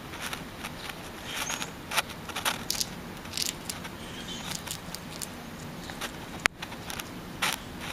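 Gray squirrel gnawing and cracking a peanut shell: an irregular run of short crackles and scrapes, with one sharp click about six and a half seconds in.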